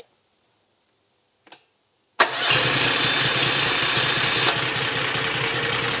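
Loncin two-cylinder engine on a homemade skid steer starting for the first time. A faint click, then it catches at once about two seconds in and runs steadily, with the sound easing a little about two seconds later.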